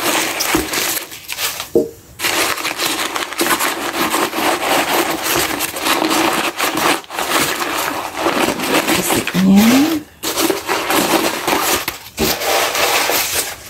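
Tissue-paper stuffing crumpling and rustling as it is pulled out of a leather handbag: continuous crinkling with a few short breaks.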